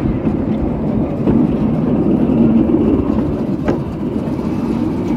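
Miniature railway train running along its track, a steady rumble of the moving train heard from on board, with one sharp click about three and a half seconds in.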